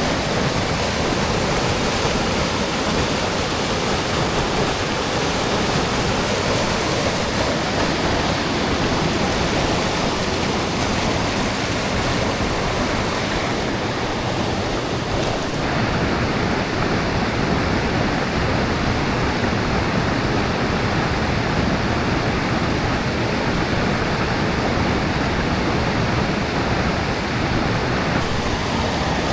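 Rushing white water from a mountain river or waterfall, a steady even noise without a break.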